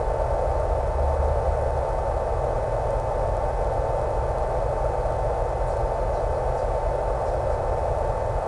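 Steady in-flight noise from the electric-powered Hobbyzone Super Cub RC plane as heard over its FPV feed: a continuous rushing drone with a constant high tone, unchanging throughout.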